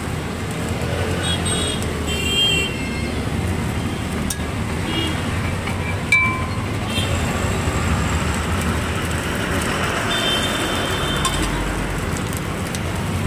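Steady road traffic noise from a busy street, with a couple of brief horn-like toots about two seconds in and again around ten seconds in, and one sharp tap about six seconds in.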